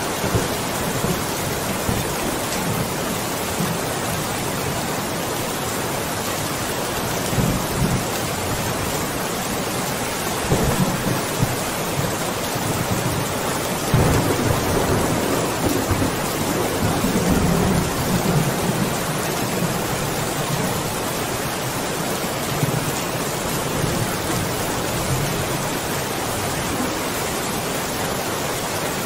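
Steady heavy rain hissing evenly, with low rumbles of thunder swelling up a few times; the loudest and longest rumble comes about halfway through and fades over several seconds.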